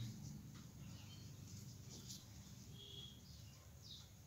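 Near silence: a pen writing on paper makes faint scratching, with a few faint high chirps in the background.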